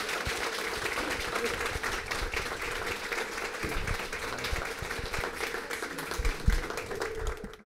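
Audience applauding: a dense, steady patter of many hands clapping that stops abruptly near the end.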